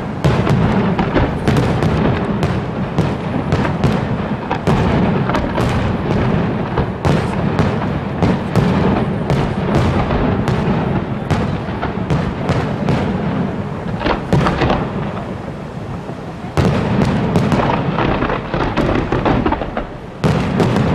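Aerial firework shells bursting in rapid, overlapping succession: a dense barrage of bangs and crackle over a continuous low rumble. It eases off after about fourteen seconds and comes back loudly about two seconds later.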